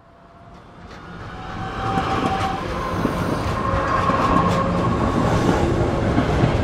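A train running along the track, fading in over the first two seconds and then steady, with a few short high-pitched squeals and clicks over the rumble.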